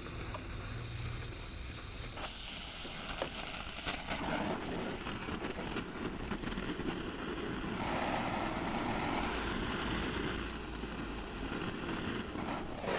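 Oxyacetylene torch flame running steadily with a rushing noise while it melts silver in a quartz crucible for casting. The sound changes abruptly about 2 seconds in, and its upper part swells for a couple of seconds near the middle.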